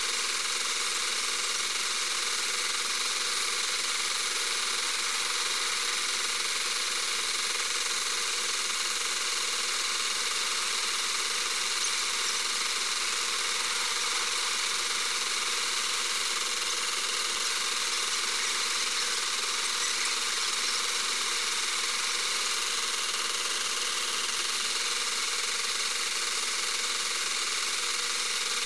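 Metal lathe running steadily while a boring tool cuts the centre hole and bearing seat of a spinning PVC wheel blank: an even, unbroken hiss-like machine noise.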